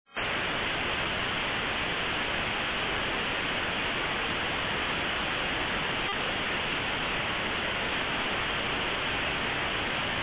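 Steady computer-generated static hiss with nothing above about 4 kHz, even and unchanging throughout.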